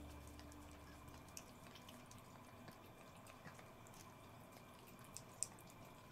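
Cats licking lickable treat paste from a squeeze tube: faint, irregular wet licking clicks, with one slightly louder click about five and a half seconds in.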